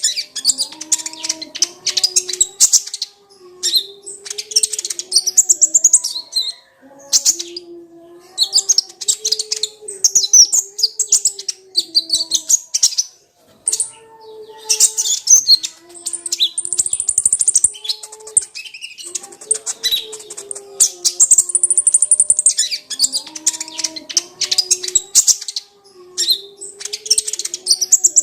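Kolibri ninja (konin), a sunbird, singing a rapid, high-pitched twittering song in phrases of a few seconds with short breaks between them. A fainter low wavering tone runs underneath.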